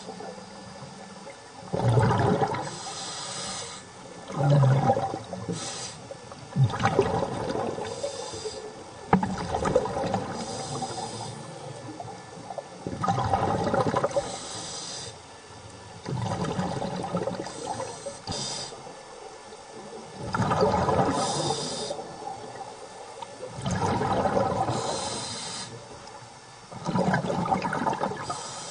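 Scuba diver breathing through a regulator underwater: a hiss on each inhale, then a gush of rumbling, bubbling exhaust on each exhale, repeating every three seconds or so.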